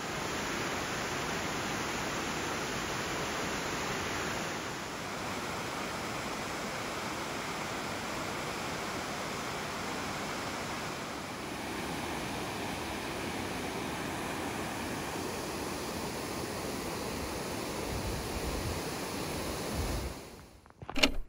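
Steady rushing roar of Yudaki Falls, an even wash of falling water. It cuts off near the end, followed by a single sharp knock.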